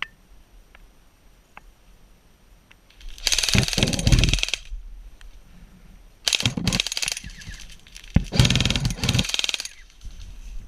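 Automatic airsoft gun firing three bursts of rapid full-auto shots, the first and last about a second and a half long and the middle one shorter, after a single sharp click.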